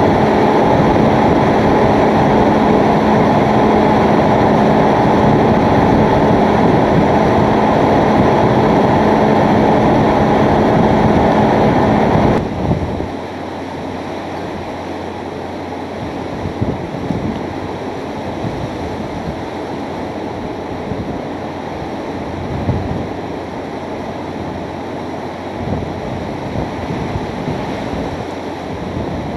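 Hurricane-force wind blowing as a loud, steady rush with a low steady hum under it. About twelve seconds in it drops suddenly to a quieter gusting wind with rain, rising in several swells.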